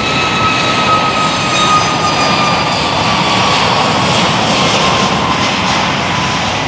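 Jet airliner's engines running loud at takeoff power on the runway: a steady rush of noise with a high whine that slowly falls in pitch.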